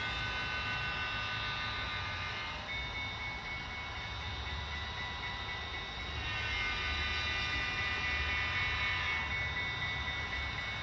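Model diesel locomotive running on a model railway layout: a steady whine of several high tones, louder near the start and again in the second half, over a low rumble of wheels on the track.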